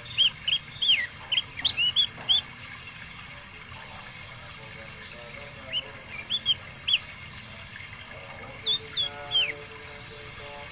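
A songbird singing in quick, high chirped notes, in three short bursts with pauses between them.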